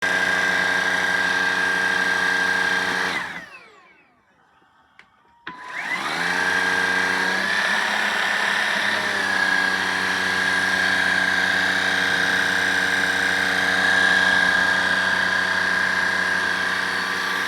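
Vacuum cleaner motor running with a steady high whine, switched off about three seconds in so that it winds down to silence, then switched on again a couple of seconds later, spinning up and running steadily.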